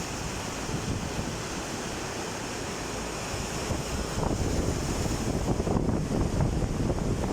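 Rushing floodwater, a steady churning rush with wind buffeting the microphone; it grows louder about four seconds in.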